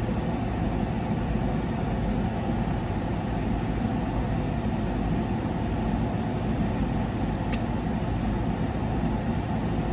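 Steady low hum inside a parked Corvette's cabin, its engine idling with the air conditioning running, with one short click about seven and a half seconds in.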